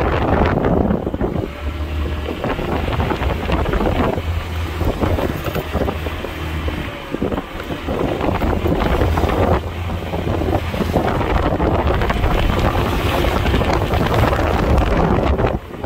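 X-Pro Tahiti 150 scooter's 150cc single-cylinder four-stroke engine running under way at about 20 mph, under heavy wind buffeting on the microphone that rises and falls.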